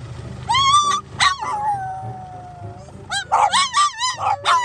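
French bulldog howling: a rising howl, then a long falling one, then a run of short wavering howls near the end. A low steady hum sits underneath.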